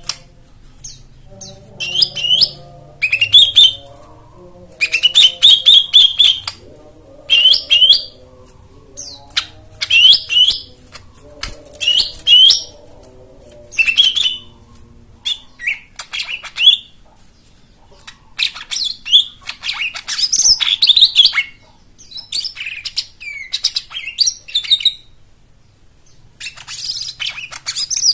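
Lesser green leafbird (cucak ijo mini) singing loud, varied chattering phrases of a second or two each, with short pauses between them.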